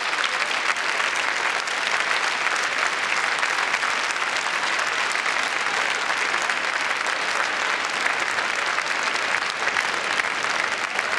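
A large crowd applauding steadily, a dense even clapping of many hands that holds at the same level throughout.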